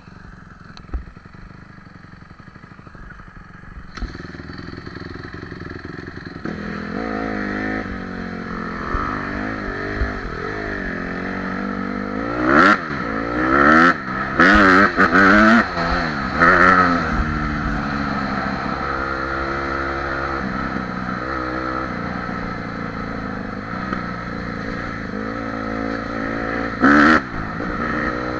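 Honda CRF150R dirt bike's single-cylinder four-stroke engine, heard from the rider's helmet camera, running low at first and then picking up about four seconds in. It revs up and down through the gears along the trail, with a few brief loud blasts in the middle and one near the end, then runs on more steadily.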